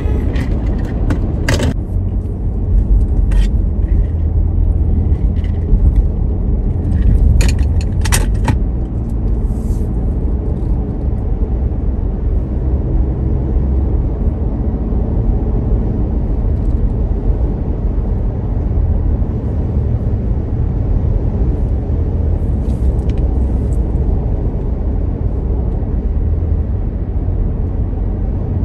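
Steady low road and engine rumble inside a moving car's cabin, with a few light clicks and rattles in the first several seconds.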